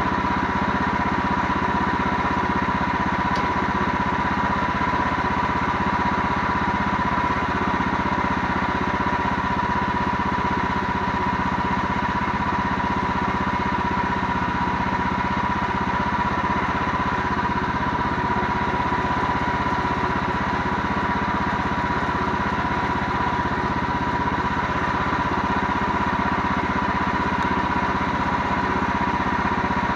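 An engine running steadily at a constant speed, with a steady high whine over it and no change in pitch or level.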